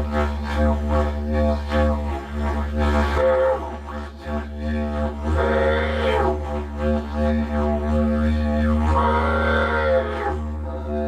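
Didgeridoo drone held steadily on one low note, with the overtones above it swelling and sweeping up and down a few times as the player shapes the tone with mouth and voice.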